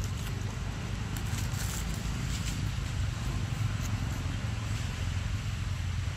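Steady low rumble under a light hiss, with a few faint crackles and scrapes.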